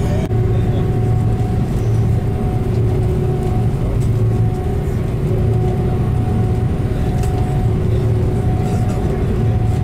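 Jet airliner's engines running at low power as it taxis, heard inside the passenger cabin as a steady low drone with a faint steady whine above it.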